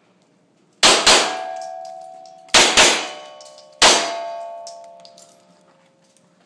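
Semi-automatic pistol fired five times, two quick pairs and then a single shot, each shot followed by the ringing of steel targets being hit.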